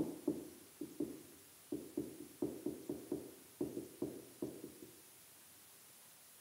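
Marker writing on a whiteboard: a faint, quick run of short taps and strokes as capital letters are written, stopping about five seconds in.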